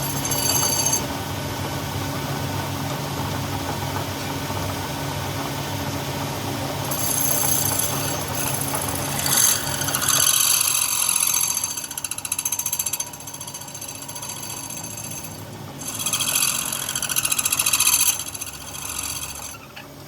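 A power tool working on metal: a steady motor hum, with louder, high-pitched metal-working noise in stretches from about a third of the way in and again near the end.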